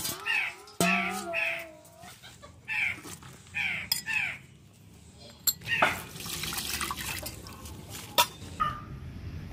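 Birds calling repeatedly over the first few seconds, then water poured into a steel bowl, a splashing rush lasting about three seconds with a couple of sharp clinks.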